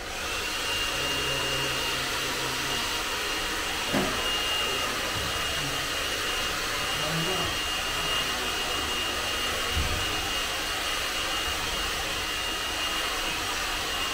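Electric hair dryer switches on and runs steadily, a rush of air with a thin high whine over it, with one brief knock about four seconds in.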